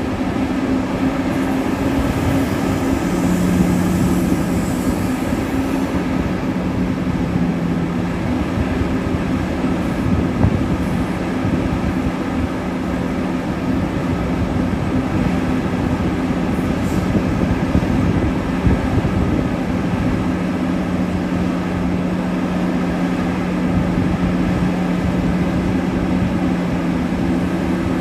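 Heavy mining machinery working: the steady, loud drone of the large diesel engines of a Liebherr R 9350 hydraulic excavator and a Cat 777E haul truck during loading.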